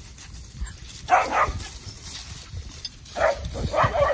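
Young Kelpie puppies barking while working cattle: a pair of short barks about a second in, then a quicker run of several barks near the end.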